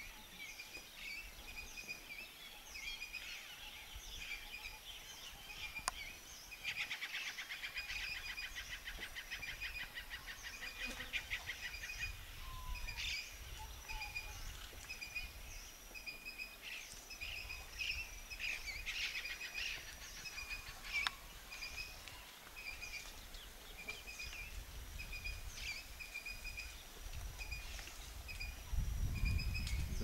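Wild birds calling: a short, high note repeated steadily, with bursts of rapid chattering about a quarter of the way in and again past the middle.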